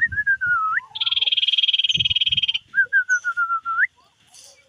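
Common iora singing: a run of whistled notes that sweep up at the end, then a fast buzzy trill for about a second and a half, then another descending series of short whistled notes ending in an upward sweep.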